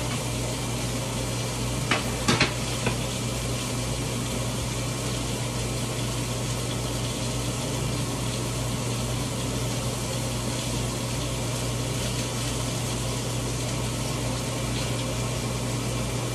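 Onions frying in a skillet, a steady sizzle over a low hum, with a few short clicks about two seconds in.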